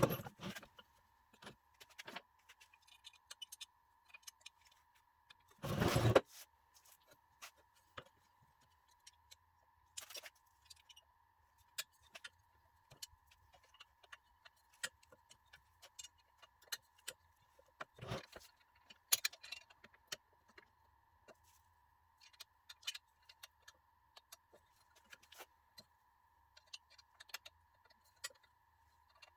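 Scattered light metallic clicks and clinks of hand tools and loose metal parts as a locomotive is being dismantled, with a louder clank about six seconds in and another near eighteen seconds. A faint steady high hum runs underneath.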